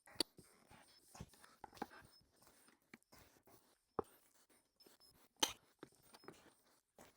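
Scattered clicks, scrapes and knocks of hand tools working a zero-turn mower tire's bead off its rim, with a few sharper knocks; the loudest comes about five and a half seconds in.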